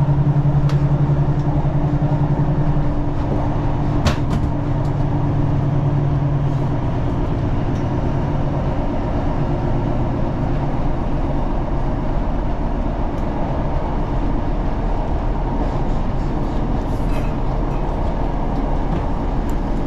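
Inside a Class 156 Super Sprinter diesel multiple unit under way: its underfloor Cummins diesel engine and the wheels on the rails make a steady running noise. The engine's low hum fades away over the first few seconds, and there is a single sharp click about four seconds in.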